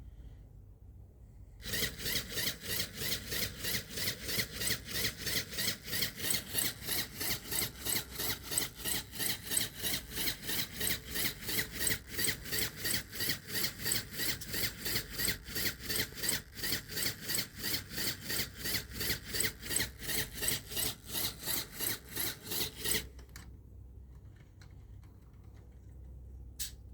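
LEGO Technic motor-driven pneumatic compressor pumping, a rhythmic rasping at about three strokes a second. It starts a couple of seconds in, runs for about twenty seconds and stops suddenly.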